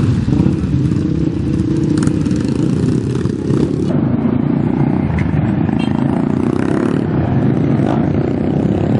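Several dirt-bike engines running together in a group, a dense, loud low-pitched drone throughout. The sound changes abruptly about four seconds in, to bikes riding out past at low speed.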